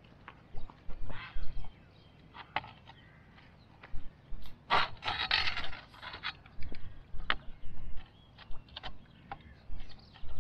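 Fishing gear being handled while rods are set up on a rod tripod: scattered light clicks and knocks, with a longer scraping rustle about five seconds in.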